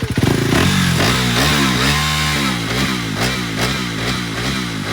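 Motorcycle engine being revved in quick repeated blips, its pitch swinging up and down about every half second.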